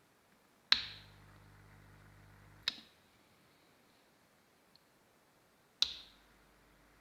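A DNS HM2125 subwoofer switched on with a click gives a steady low mains hum for about two seconds, a fault hum. A second click cuts the hum off, and a third click near the end brings back a fainter hum.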